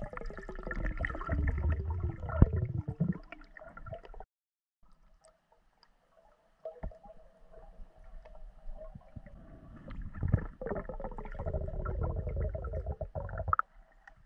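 Underwater gurgling and rumbling of water and bubbles around a diver, recorded with the camera underwater, in two spells of about four seconds with a near-silent gap between them.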